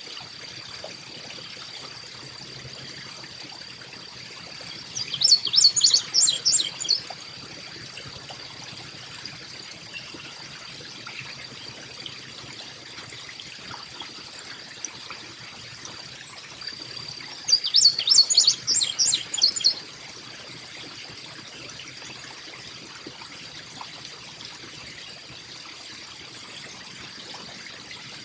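Carolina chickadee calling: two bursts of rapid high notes, each about two seconds long, roughly twelve seconds apart. Underneath are a steady thin high tone and a soft trickle of water.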